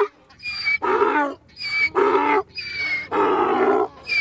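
An animal calling over and over, a rhythmic series of loud calls each about half a second to a second long.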